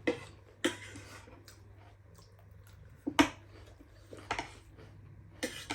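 Cutlery clicking and scraping against a bowl during eating, in irregular short strokes with the loudest about three seconds in.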